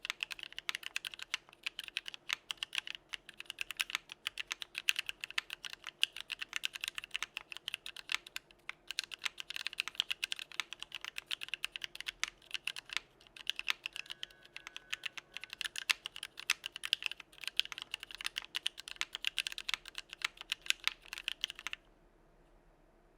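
Steady, fast typing on a mechanical keyboard with Novelkeys x Kailh Box Cream linear switches, an aluminum plate, no foam or dampening, and CRP keycaps. It is a dense run of crisp key clacks with a few brief pauses, and it stops suddenly near the end.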